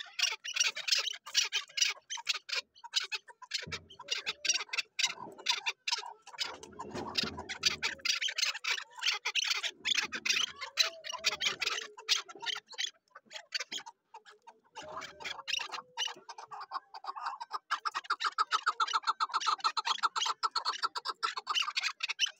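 Chukar partridge calling: long runs of rapid, clicking clucks, turning into a fast, even chatter for the last few seconds.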